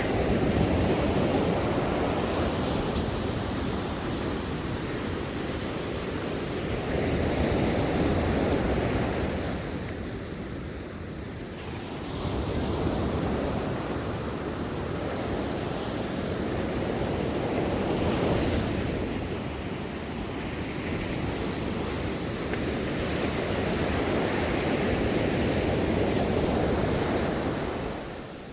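Ocean surf: waves washing onto a shore in a continuous rush that swells and recedes every several seconds, dropping away sharply at the very end.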